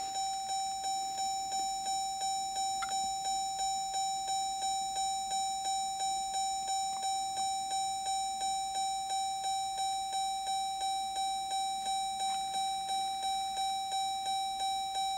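Car's door-open warning chime ringing over and over, a single-pitched ding about three times a second, each one fading before the next: the ignition is on with the driver's door open.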